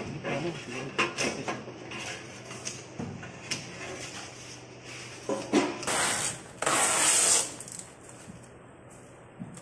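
Scattered knocks, clicks and scraping as metal parts of a stainless-steel machine are handled and adjusted, with a loud rushing noise lasting under a second about two-thirds of the way in.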